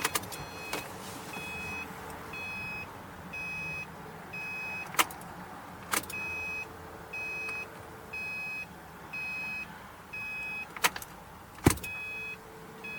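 A Subaru WRX's warning chime beeps steadily about once a second with the door open or the key in. A few sharp clicks and knocks come in between, the loudest near the end.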